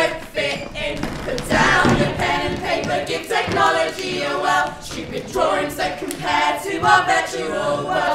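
A group of voices singing together without instruments.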